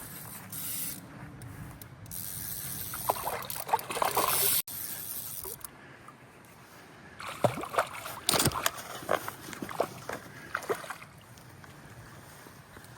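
Water splashing as a hooked trout thrashes at the surface while being played in, with a run of sharp splashes in the second half.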